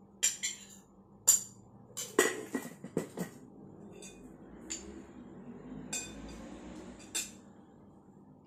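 Metal spoon and ceramic plate clinking and knocking on a wooden table as the plate of rice is set down and handled: a quick run of sharp clinks in the first three seconds, then three single clinks a second or so apart.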